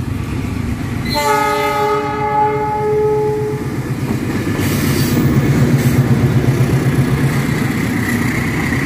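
KAI CC 206 diesel-electric locomotive sounding its horn once, a chord of several notes held about two and a half seconds starting about a second in, while its diesel engine runs pulling a departing cement freight train. The engine grows louder as the locomotive passes close by midway through.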